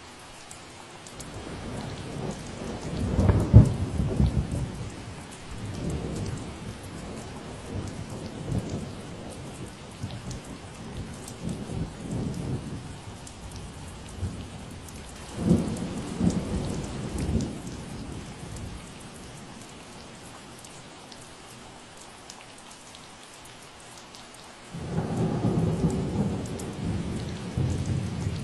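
Steady rain falling, with rolls of thunder rumbling over it. The loudest roll peaks sharply about three and a half seconds in, another comes a little past halfway, and a third starts suddenly near the end.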